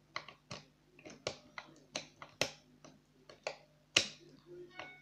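Irregular sharp metal clicks and taps of lock picks working inside a three-lever lock: the lever-lifting tool and tension tool knocking against the levers and bolt, the loudest click about four seconds in.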